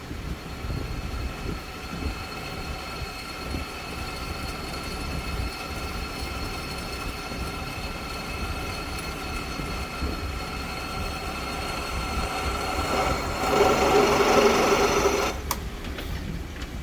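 Milling machine running, a steady machine whine made of several held tones. About 13 seconds in it grows louder and rougher for a couple of seconds, then drops back with a sharp click.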